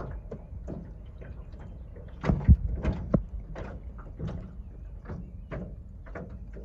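Irregular light knocks and taps on a jon boat's hull, with a louder thump about two and a half seconds in, over a steady low rumble.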